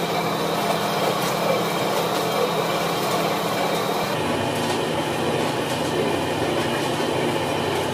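Commercial dough mixer running: a steady electric motor hum and mechanical rumble as its arm churns a large batch of bread dough in the metal bowl. The hum's pitch shifts slightly about four seconds in.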